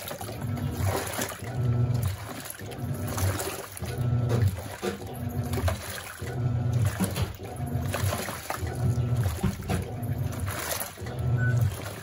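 Panasonic NA-F140B6 top-load washer agitating a soapy load of jeans. The motor hums in low pulses about once a second as the pulsator turns back and forth, with water sloshing and splashing throughout.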